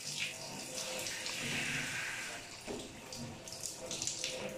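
Handheld shower head spraying cold water over a man's head and body, a steady hiss and splash of running water.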